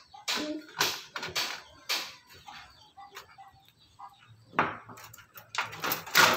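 Clicks, rustles and light clatter of hands pulling cables and connectors inside a desktop computer's metal case, in short irregular bursts that are loudest near the end.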